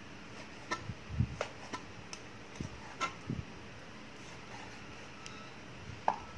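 Meat cleaver chopping pork on a thick round wooden chopping board: irregular sharp knocks, several close together over the first three seconds or so and one more near the end.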